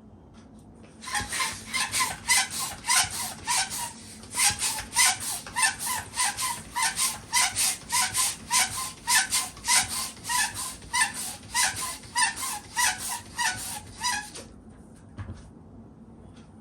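Balloon hand pump being worked fast, about four strokes a second, each stroke a rasping rush of air with a short squeak. It starts about a second in and stops a little before the end.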